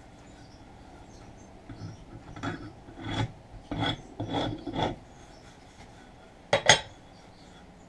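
A big rasp scraped in about six short strokes across a wooden hatchet handle, roughing grip marks into the hand grip. Two sharp knocks follow about six and a half seconds in, the loudest sounds.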